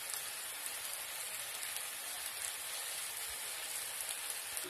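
Steady sizzling with fine crackles from a hot nonstick pan of layered biryani rice and fried onions cooking on a gas stove.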